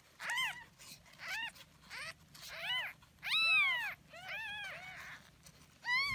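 Newborn kitten mewing, about eight short high-pitched cries that each rise and fall in pitch, the loudest and longest about three and a half seconds in.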